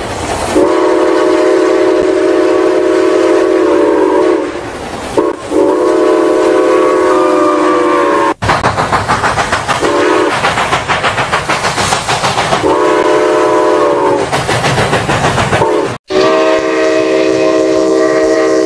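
A six-chime steam locomotive whistle, the Central of Georgia chime, blows about six chord blasts, long and short. Through the middle a rapid rhythmic chuffing and clatter of a moving steam train runs under it. The sound cuts off abruptly twice where recordings are spliced together.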